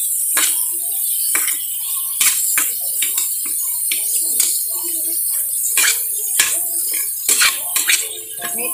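Metal spatula scraping and clanking against a stainless steel wok as cut green beans and ground pork are stirred, with many sharp irregular clinks over a steady hiss of frying.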